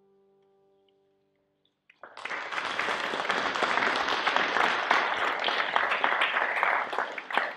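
The last violin and piano chord fades away. About two seconds in, an audience starts applauding and keeps clapping steadily.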